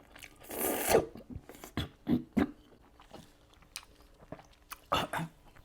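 Eating sounds of rapokki, Korean rice cakes and ramen in spicy sauce: chewing with scattered wet mouth clicks, and a short hissing burst about half a second in and another near the end.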